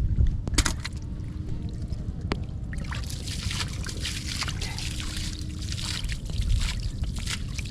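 Water splashing and sloshing, growing busier about three seconds in, over a steady low rumble.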